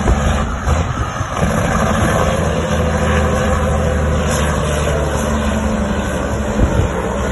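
Western Star dump truck's diesel engine running steadily as the truck travels downhill, a low rumble with road and wind noise over it.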